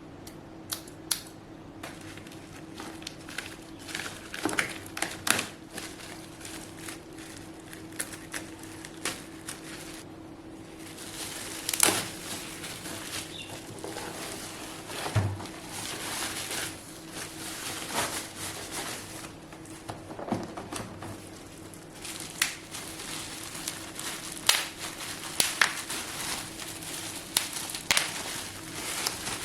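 Packaging of a light being unboxed and handled: scattered sharp clicks and taps with crinkling and rustling, busier from about halfway, over a faint steady hum.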